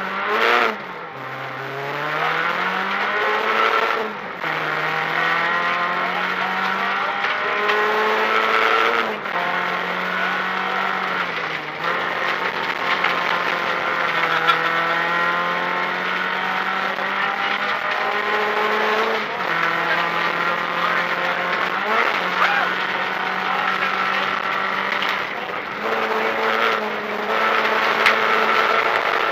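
Renault Clio rally car's engine heard from inside the cabin, driven hard at speed. The revs climb repeatedly and drop sharply with each gear change or lift, over a steady rush of tyre and road noise.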